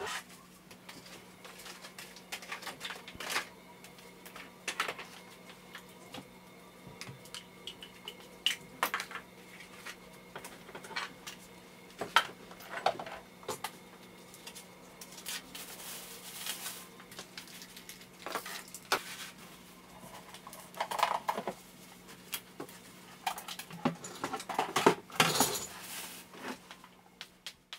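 Irregular clicks and clatters of small hard items, nail-supply pieces and colour chart boards, being picked up, moved and set down on a worktable while it is tidied. The clatter is busiest near the end.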